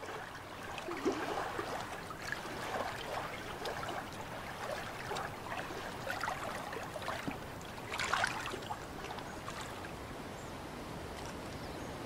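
Shallow water trickling and gurgling, with louder splashy moments about a second in and about eight seconds in, evening out into a steadier rush near the end.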